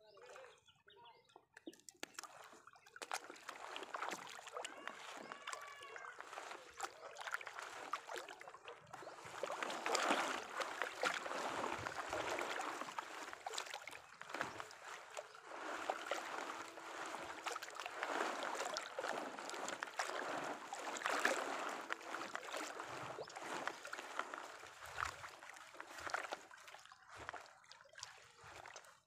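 Wet monofilament gill net being hauled up from the water into a small boat, water splashing and dripping off the mesh with small crackles and rustles, louder around ten and twenty-one seconds in.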